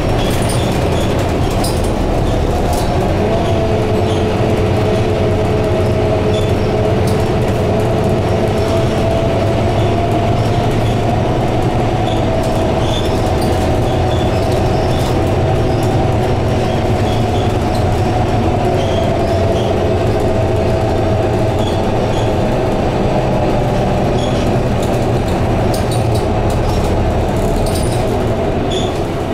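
Interior of a Scania K230UB single-deck-chassis double-decker bus under way: the engine and drivetrain running with a whine that slowly rises and falls with road speed, over steady road rumble and small rattles and clicks from the body and fittings.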